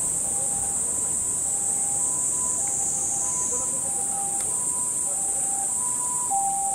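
A steady, high-pitched drone of insects, with a distant two-tone emergency-vehicle siren alternating between a higher and a lower note, each held about half a second.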